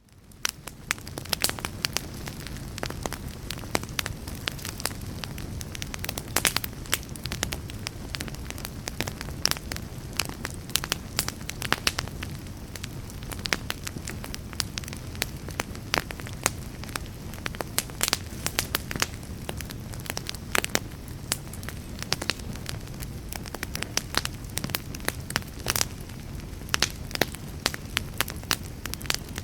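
Wood fire burning in a fireplace: dense, irregular crackling and popping of the wood over a steady low rumble of flame. The sound fades in over the first second.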